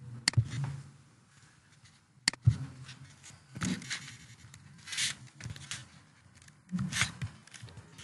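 Scattered keystrokes on a computer keyboard: a handful of separate short clicks a second or so apart, the sharpest about two seconds in.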